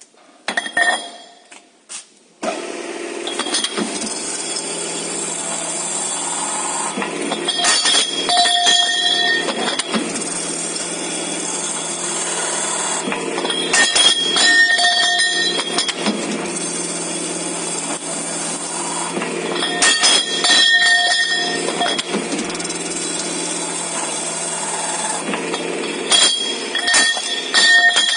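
Automatic double-end pipe chamfering machine running with a steady motor hum; about every six seconds the rotating cutter heads chamfer a metal pipe end, each cut a couple of seconds of louder machining with a ringing squeal. A few clanks of metal pipes come in the first two seconds.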